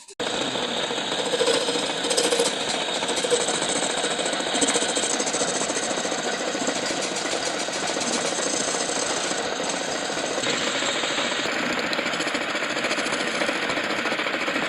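Metal lathe cutting a steel workpiece: a dense, steady machining noise with a fast rattle in it, starting suddenly.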